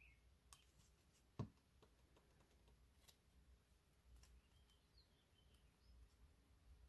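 Near silence: faint handling of paper die-cut pieces, with one sharp tap about a second and a half in and a few fainter ticks. Faint short high chirps come now and then.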